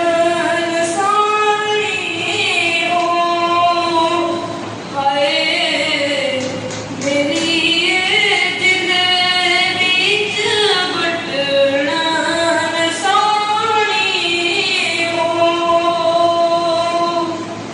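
A boy singing a Chambyali folk song solo, without accompaniment, in a high voice, holding long notes and sliding between pitches, with short pauses for breath between phrases.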